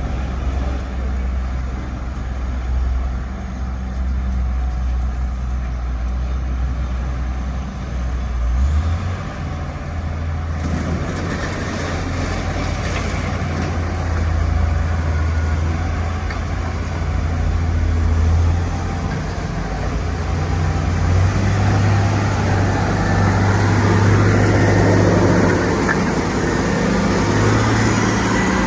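HD850 motor grader's diesel engine running steadily while grading, its pitch stepping up about nine seconds in and again around twenty seconds. A rough hiss grows louder in the second half.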